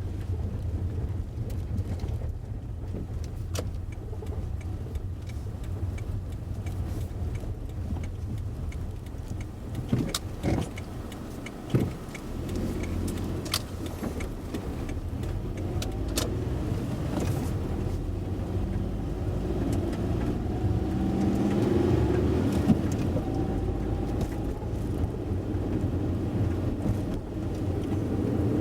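Car driving, heard from inside the cabin: a steady low road and engine rumble, with occasional clicks, knocks and rattles from bumps in the road.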